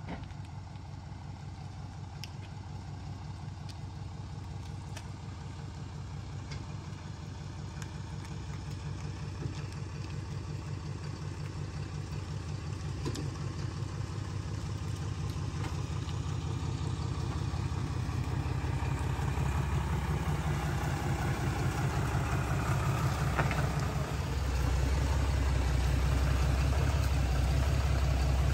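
An engine idling with a steady low throb, growing steadily louder as it comes closer, with a further step up in loudness near the end.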